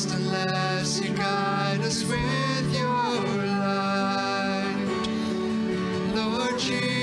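Live worship band playing a song: piano, acoustic guitar and keyboard accompany a man singing into a microphone.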